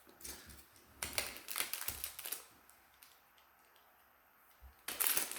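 Small plastic items and packaging being handled, with clusters of light clicks and rustles. Near the end a louder, denser crinkling of a plastic bag starts.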